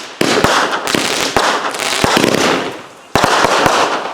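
Consumer firework going off in loud bursts of rapid crackling. One burst starts just after the opening and a second about three seconds in, each peppered with sharper bangs.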